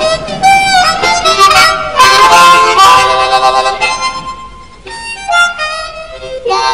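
Background music: a harmonica playing a melody with bent notes, with a short dip in level about five seconds in.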